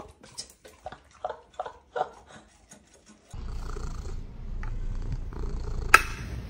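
Golden retriever crunching dry kibble, a quick irregular run of small clicks. After about three seconds a cat purring steadily, with one sharp click near the end from the ring-pull tin of cat food being handled.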